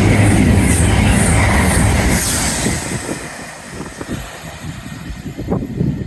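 A train passes close by at speed. The noise comes on suddenly, with a steady low hum and a rushing hiss, is loudest for the first two seconds or so, then fades away.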